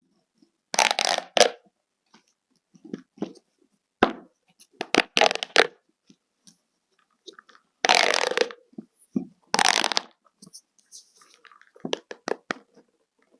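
Handmade toys being handled: short bursts of noise, the loudest about a second in and around eight and ten seconds, with small clicks and taps between them.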